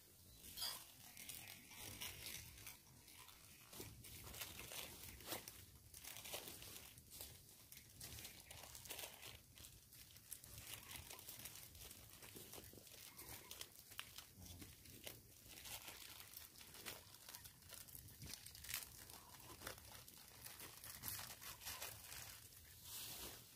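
Faint, irregular crackling and rustling close by, with a few sharper snaps among them.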